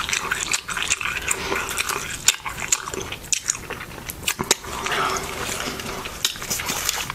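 Close-up chewing of a burrito with many irregular wet clicks and lip smacks.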